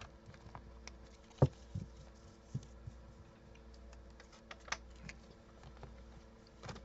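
Oracle cards being shuffled and laid down on a cloth-covered table: scattered light taps and clicks, the sharpest about a second and a half in, over a faint steady hum.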